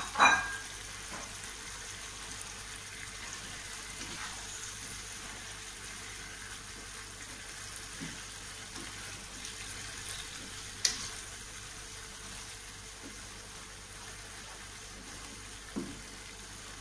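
Tempe, tofu and shrimp cooking in sauce in a wok with a steady faint sizzle while a spatula stirs them. There are a few sharp clicks of the spatula on the pan, the loudest about eleven seconds in.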